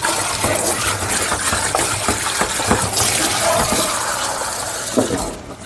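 Water running steadily from a tap, with a few light knocks, shut off shortly before the end.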